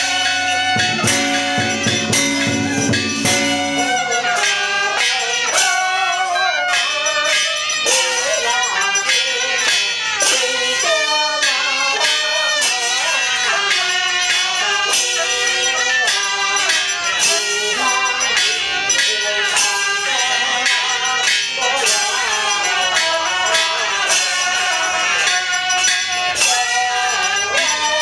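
Taoist ritual music: regular percussion strikes throughout, with a few held low tones that give way about four seconds in to a wavering melodic line.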